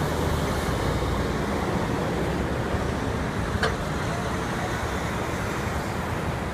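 Steady highway traffic noise: cars and tractor-trailers passing on a multi-lane turnpike, with a short click about three and a half seconds in.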